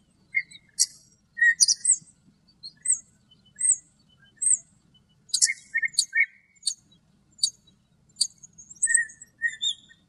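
Common starling singing: a jumble of short high whistles, dry clicks and lower chirps in quick bursts separated by brief gaps.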